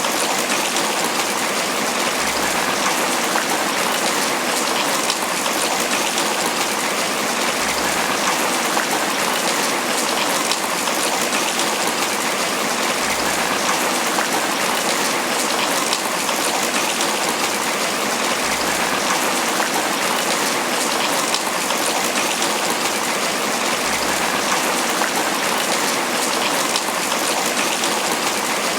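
Steady tropical rain falling on banana leaves: a dense, even patter of drops that keeps the same strength throughout.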